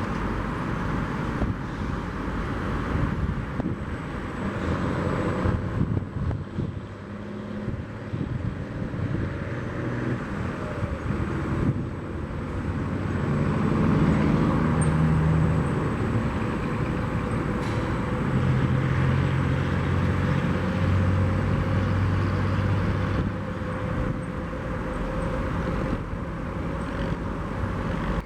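Steady engine rumble at an airport, with low engine tones that swell and shift, loudest around the middle.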